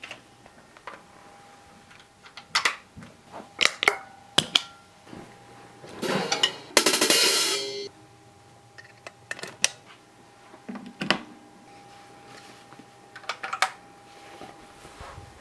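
Scattered drum and cymbal hits on a drum kit, sparse and unrhythmic, with a cymbal swell and crash about seven seconds in that rings for about a second. A faint steady hum runs underneath.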